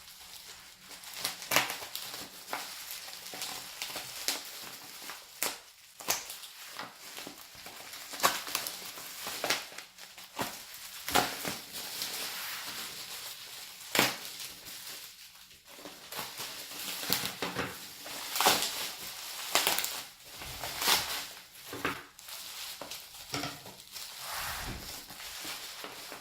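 Bubble wrap and plastic packaging being handled and pulled open: crinkling and crackling with frequent sharp snaps and clicks.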